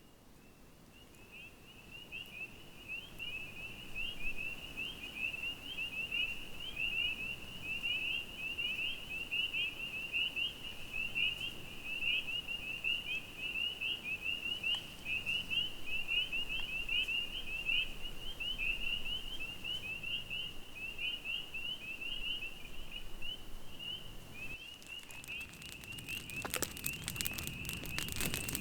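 Chorus of spring frogs calling, a dense unbroken stream of short high peeps from many frogs at once. Sharp crackles like a campfire join near the end.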